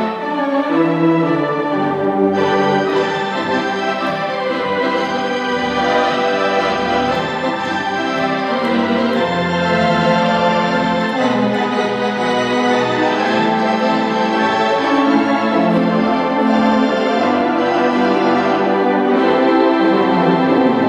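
Wurlitzer organ playing music: sustained, overlapping chords over changing bass notes, without a break.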